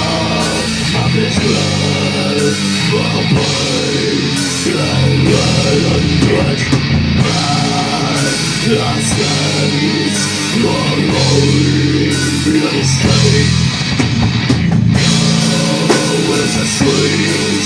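Heavy metal band playing live at full volume: distorted electric guitars, bass and a pounding drum kit.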